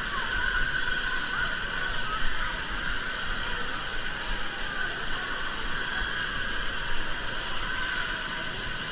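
Steady hiss of spraying and splashing water in an indoor water park, with faint distant voices.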